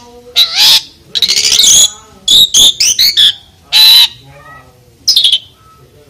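Asian pied starling (jalak suren) singing loudly: a string of rising whistled notes and harsh calls, with a quick run of about six short notes near the middle. The song stops shortly before the end.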